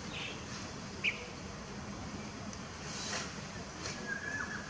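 Steady low background hum with a few short bird chirps: a sharp one about a second in, and a brief flat whistle near the end.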